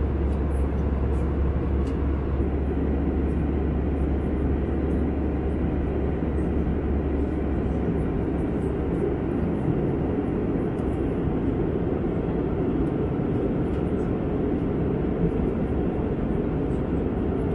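Steady cabin drone of an Airbus A320 airliner in cruise: even engine and airflow noise, low and unbroken, its deepest rumble thinning out about halfway through.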